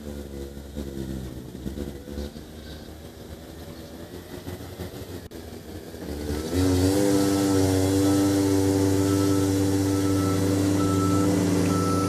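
Compact track loader's engine and high-flow hydraulics driving a snowblower attachment, running at a lower speed at first, then about six seconds in revving up with a short rise in pitch to a louder, steady whine. A faint repeated beep sounds near the end.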